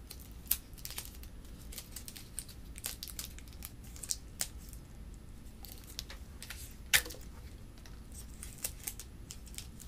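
Paper crinkling and crackling as a folded paper strip is worked and taped over a base of plastic straws, with scattered sharp clicks, the loudest about seven seconds in.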